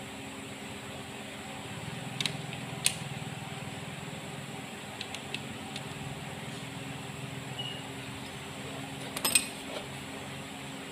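A few sharp metal clicks and taps from a wrench working on the timing gears of a bare Perkins four-cylinder diesel engine block, twice early on and a louder cluster about nine seconds in, over a steady workshop hum.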